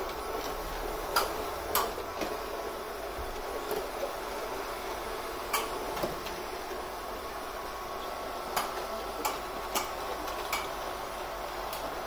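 ILIFE V7s Plus robot vacuum cleaner running, a steady whir of its fan and brushes, with about a dozen sharp clicks and knocks at irregular moments as it drives into furniture.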